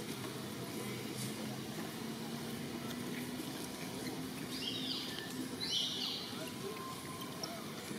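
Steady outdoor background noise, with two short, high chirps a second apart about halfway through.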